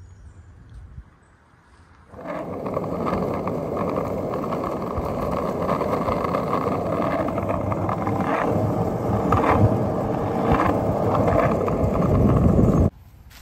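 Skateboard wheels rolling over asphalt: a steady rolling noise with a few sharp clacks. It starts about two seconds in and cuts off abruptly near the end.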